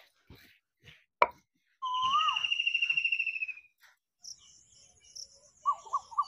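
Birds calling: a fast, even trill lasting nearly two seconds, with short warbled notes near the end. A single sharp knock about a second in is the loudest sound.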